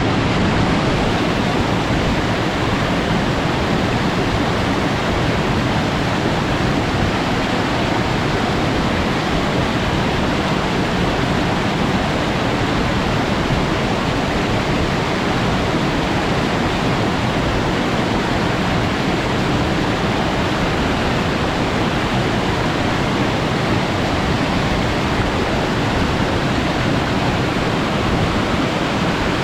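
A waterfall crashing steadily into its plunge pool: a loud, unbroken rush of falling water.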